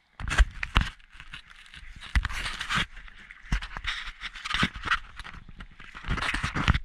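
Wet seaweed and rock underfoot and in the hands: crackling rustles and scrapes as it is trodden on and then pulled aside, in several irregular bursts.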